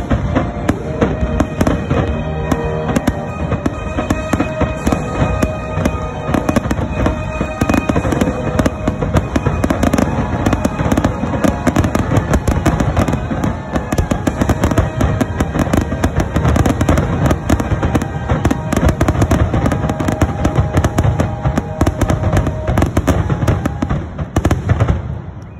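A dense, continuous barrage of aerial fireworks shells bursting and crackling, a finale, with music playing underneath. The bursts die away suddenly near the end.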